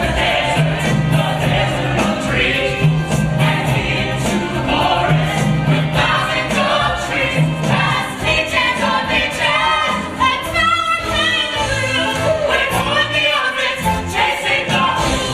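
Musical-theatre number: a cast ensemble singing over a pit orchestra.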